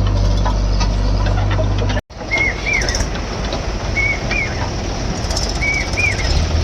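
A heavy diesel machine engine running steadily at a low hum, cut off abruptly about two seconds in. A bird then calls three times, about every second and a half to two seconds, each call a short flat note followed by a higher arched note, over a low rumble.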